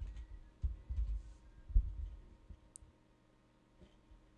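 A few clicks of a computer mouse and keyboard, each with a low desk thump, in the first half; the rest is faint.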